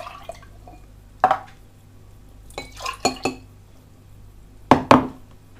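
Dishes and utensils being handled, clinking and knocking: one sharp knock about a second in, a quick cluster of clinks around three seconds, and two loud knocks close together near the end.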